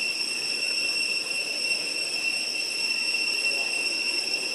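Cicada chorus: a steady, unbroken high-pitched drone, over a faint low background rumble.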